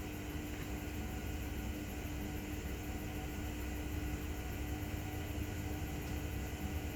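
Steady low mechanical hum with a faint constant tone and hiss over it, unchanging throughout: room background noise.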